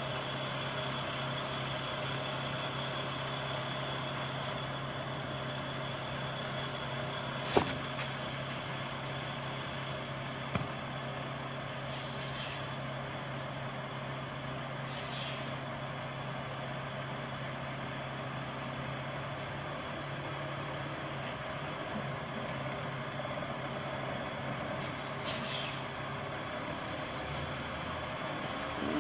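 Semi truck's diesel engine idling steadily as the rig creeps through a tight turn, with a few short bursts of air-brake hiss. Two sharp clicks stand out, the louder one about a quarter of the way in.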